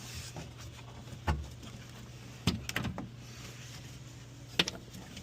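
A few scattered knocks and clicks of car interior parts and hardware being handled, over a low steady hum.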